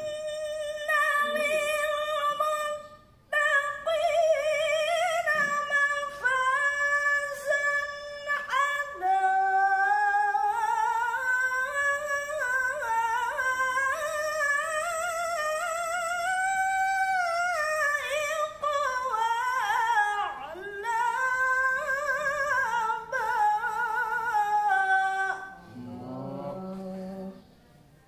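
A woman reciting the Qur'an in the melodic tilawah style, unamplified: long, high, ornamented phrases with wavering held notes. She breaks for breath about three seconds in and finishes a phrase a couple of seconds before the end, after which a short lower voice is heard.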